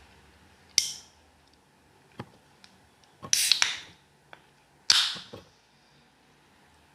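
Three crisp, crunchy bites into a masala-fried chicken leg piece, with a few faint clicks of mouth and hand noise between them; the second bite is the longest.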